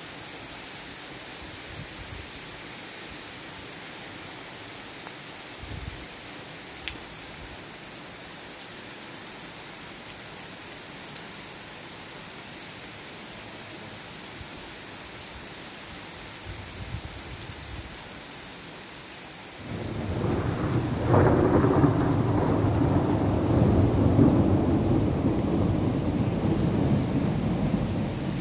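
Steady rain falling. About two-thirds of the way in, thunder breaks in suddenly with a sharp crack, then rolls on as a loud, deep rumble for several seconds.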